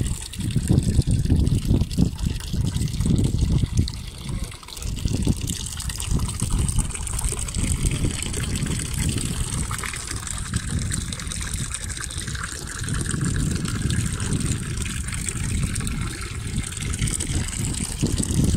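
Water trickling and sloshing in a stone fountain basin, over an uneven low rumble that rises and falls in gusts.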